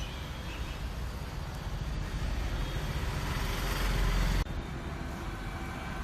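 Steady road traffic noise with a low rumble, building louder over a few seconds and then cutting off suddenly about four and a half seconds in.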